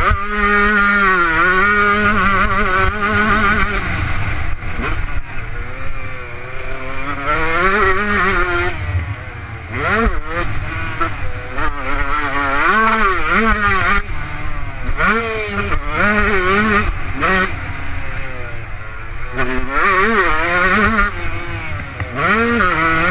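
Kawasaki KX125 two-stroke motocross engine revving hard and easing off again and again, its pitch climbing and dropping every second or two, with wind buffeting the helmet microphone underneath.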